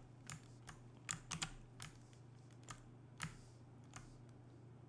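Faint, irregular clicking of a computer keyboard and mouse, about a dozen clicks scattered over a few seconds, over a low steady hum.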